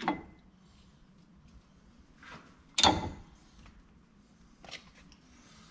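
A new front brake pad is pushed and slid into the metal pad clips of the caliper bracket, giving a few short metal clicks and scrapes. The loudest is a sharp clack about three seconds in.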